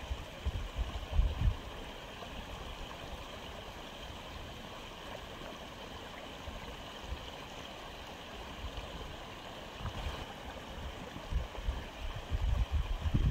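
Aquarium filter running, water trickling steadily, with low rumbling bumps in the first second or so and again over the last few seconds.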